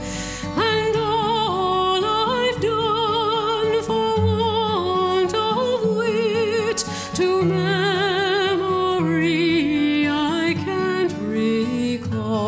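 Background music: a voice sings a slow melody in long notes with wide vibrato over sustained chords.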